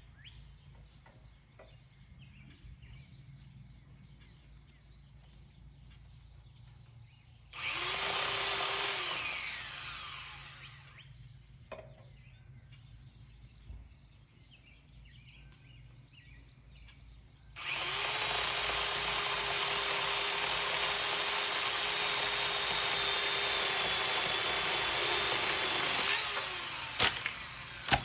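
Electric power tool motor run twice at a steady high speed: a short burst that spins down, then a longer run of about eight seconds that winds down, followed by two sharp snaps.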